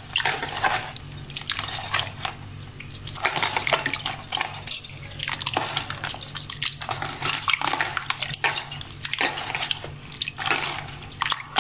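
A hand squeezing and breaking up tamarind soaking in a plastic tub of water: irregular sloshing and squelching splashes, over a low steady hum.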